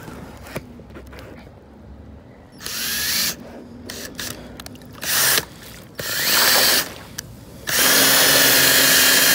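Cordless Ryobi drill spinning a paint-mixer paddle used as a boat propeller, with the paddle churning the water; the drill runs in four bursts, three short ones and a longer one of about two seconds near the end. The paddle gives little thrust, which the owner puts down to the prop being too small.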